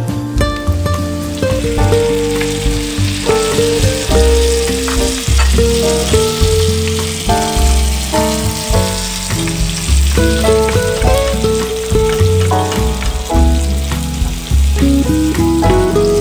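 Diced tomatoes and green peppers sizzling in oil in a frying pan while being stirred with a wooden spoon. This sits under louder background music with a bass line and a melody.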